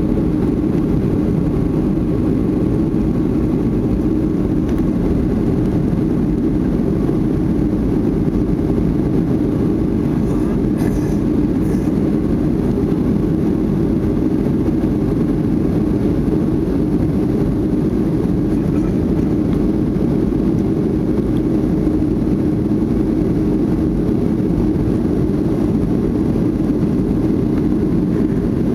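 Boeing 737-500 cabin noise: the steady, even roar of its CFM56-3 turbofan engines and the rush of air past the fuselage, heard from a window seat inside the cabin.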